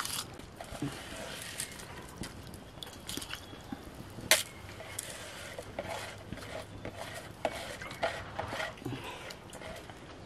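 Rice being washed by hand in a plastic bowl: wet grains and water stirred and squeezed, with scattered small clicks and knocks and one sharp knock about four seconds in.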